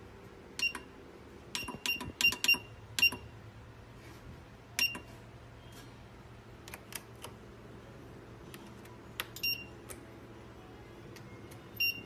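USB cable testing machine giving short, sharp clicking beeps at irregular intervals: a quick cluster of five or six in the first few seconds, then single ones, over a steady low machine hum.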